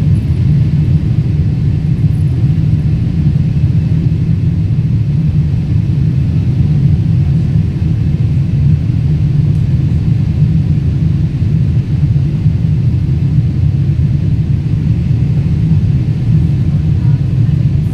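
Airliner cabin noise during the climb after takeoff: the jet engines and rushing air make a loud, steady low rumble heard from inside the cabin.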